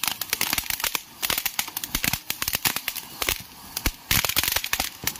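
Fireworks going off: a dense, irregular run of sharp cracks and pops from a ground fountain firework throwing up crackling sparks and bursting stars.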